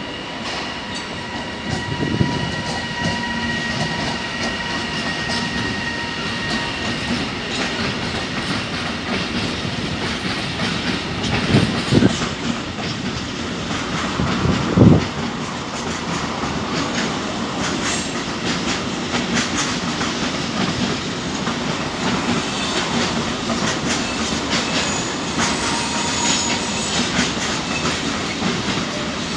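Intermodal container freight train, hauled by an E.494 electric locomotive, rolling past with its wagon wheels clattering over the rail joints. There is a steady high whine in the first several seconds and a few louder knocks along the way.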